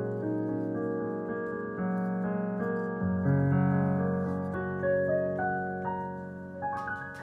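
Background piano music: slow, held chords with a melody moving over them.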